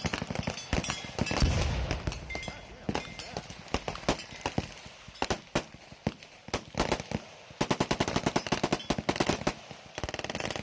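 Gunfire: a run of single shots, then about eight seconds in a rapid burst of automatic fire lasting about two seconds.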